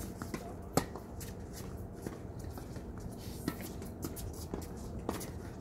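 Tennis balls struck with rackets: one sharp pop about a second in and fainter hits later, with shoes scuffing on the hard court.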